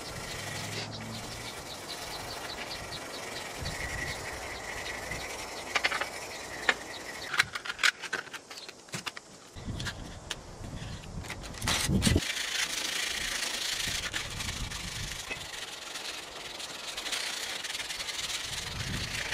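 Corrosion being scrubbed off the inside of an aluminium mast tube by hand with abrasive: irregular scraping with scattered knocks and taps in the middle, then steady scratchy rubbing in the second half.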